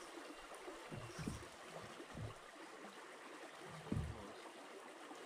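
River water running, a steady gentle rush, broken by a few low thumps about one, two and four seconds in, the last the loudest.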